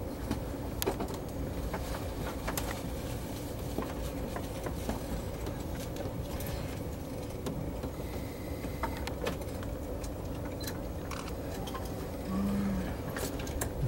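Steady low rumble of a slowly moving passenger train, heard from inside the carriage, with scattered small clicks and rattles.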